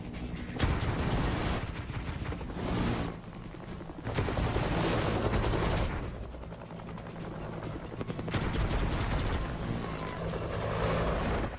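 Helicopter sound effect: a steady low engine and rotor sound with a dense, rapid chopping. It swells and fades in spells of a few seconds.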